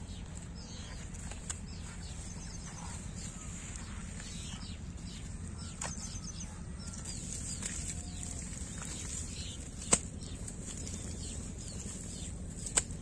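Small birds chirping on and off over a steady low rumble, with a sharp click about ten seconds in and another near the end.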